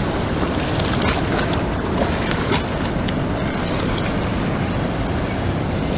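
Steady rushing noise of flowing river water, with a few faint clicks.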